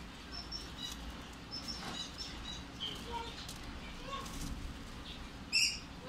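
Young lovebird making short, soft, high chirps every so often, then one loud harsh squawk near the end.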